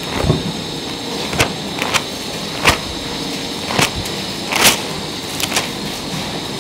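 Thin Bible pages being leafed through by hand, picked up close by a handheld microphone: a string of short crackling flicks at irregular intervals, about seven in all, one a longer swish about two thirds of the way through, over a steady hiss.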